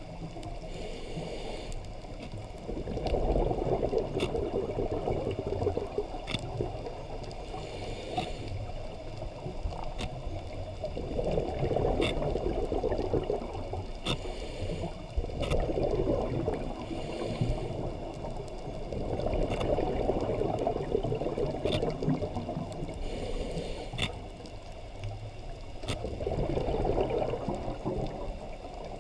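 Scuba regulator breathing heard underwater: a short hiss on each inhale, then a louder gush of exhaled bubbles, about five breaths in all. Scattered sharp clicks run throughout.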